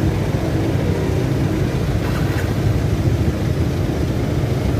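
Steady low rumble of a vehicle engine and road traffic, with a constant hiss over it.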